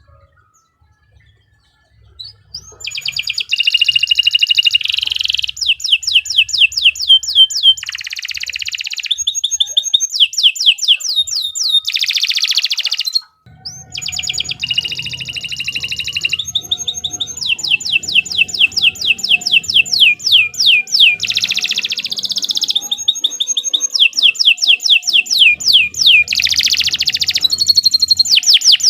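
Domestic canary singing a long, loud song of fast repeated high trills and rolls, starting about two seconds in after a near-silent moment and pausing briefly about halfway.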